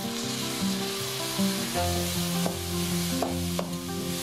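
Red lentils (masoor dal) sizzling in hot oil in a steel kadai, stirred with a wooden spatula that clicks and scrapes against the pan a few times in the second half. Background music plays underneath.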